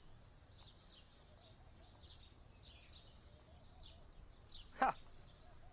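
Birds chirping over a low background hum, with one brief loud sound a little before the end.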